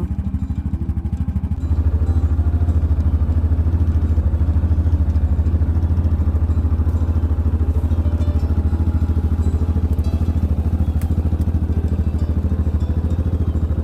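Tractor engine running steadily with a low, fast, even chug; it gets louder about two seconds in and holds there.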